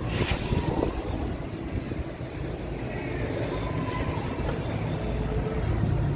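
Narrow-gauge steam train riding the rails: a steady low rumble with a few faint clicks.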